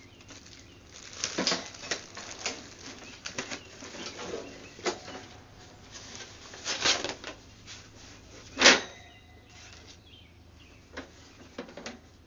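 Cardboard packing and metal grill parts being handled during the unboxing of a portable grill: irregular rustling, flapping and clattering, with one loud sharp knock about eight and a half seconds in.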